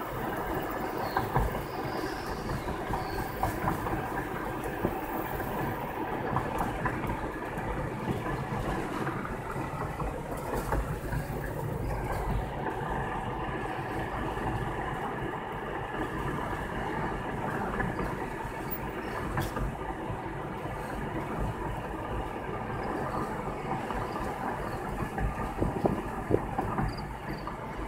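Steady road noise inside a moving car: tyres on the pavement and the engine running, with small bumps and rattles.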